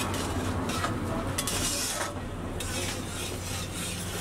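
Metal spatula stirring and scraping through simmering red tomato sauce in a wide iron pan, in repeated strokes, with the sauce sizzling, over a steady low hum.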